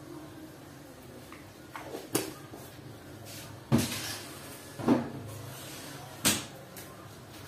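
Kitchen utensils knocking: four sharp knocks spread over a few seconds, over a faint low hum.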